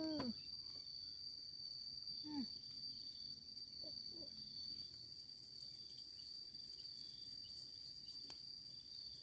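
Insects droning at one steady high pitch, faint, with a couple of short falling calls near the start and about two seconds in.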